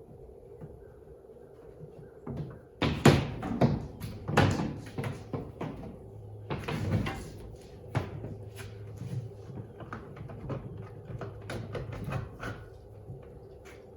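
Irregular knocks, bumps and rattles of hands-on work, loudest in a cluster about three to four seconds in and again about seven seconds in, over a steady low hum.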